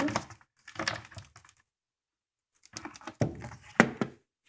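Irregular mechanical clicks and knocks in three short clusters, with the loudest knocks near the end, as a 1930s portable typewriter and its carrying case are handled.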